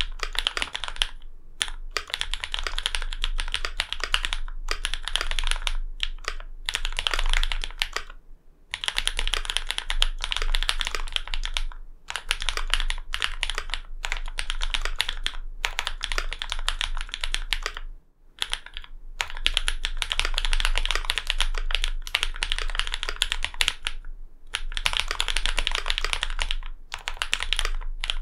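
Fast typing on a custom mechanical keyboard with lubed and filmed linear Cherry MX Black switches, an aluminium plate and foam-dampened case, keystrokes running in bursts of several seconds with brief pauses between them.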